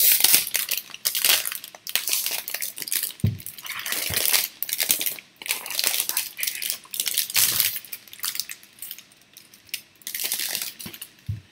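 Plastic wrapping crinkling and rustling in quick, irregular bursts as a device is pulled out of its protective sleeve by hand, with a couple of soft handling knocks about three and four seconds in.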